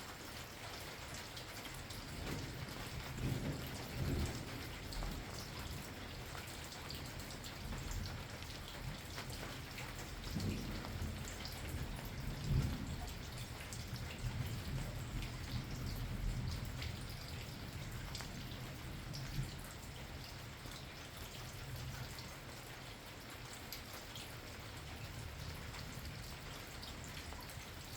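Steady rain falling, with individual drops ticking close by, and thunder rumbling low: one roll swells a few seconds in and a longer one rolls through the middle before fading.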